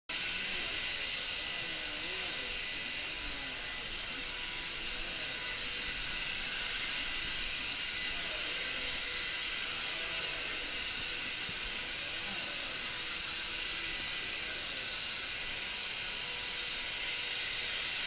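Corded stick vacuum cleaner running steadily on carpet: a constant rush of air with a steady high-pitched motor whine.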